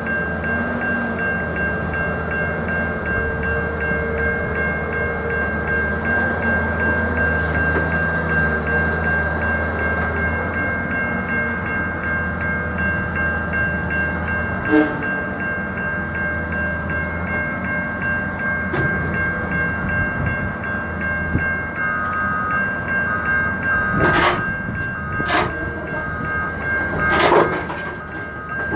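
Excavator diesel engine running steadily with a constant whine, as the machine is driven off a rail slot car. In the last several seconds a beeping alarm sounds at an even pace, and several sharp knocks ring out.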